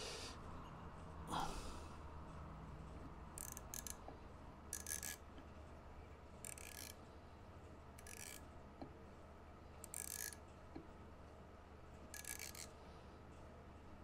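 Faint, short rasping scrapes, about eight of them spaced a second or two apart: small hubcaps being screwed by hand onto the road wheels of a 1/6-scale Armortek Tiger I model tank.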